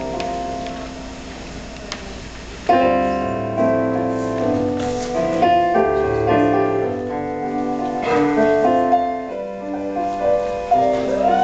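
Live swing band playing, the piano out front over an upright bass. A held chord dies away over the first few seconds, then the band comes back in strongly just under three seconds in, with the bass stepping through a line beneath the piano.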